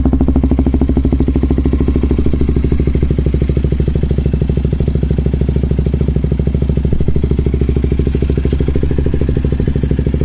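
KTM Duke 200's single-cylinder engine idling steadily through an LCI titanium slip-on silencer with its inner silencer (baffle) removed, on the stock header pipe, giving an even, pulsing exhaust beat.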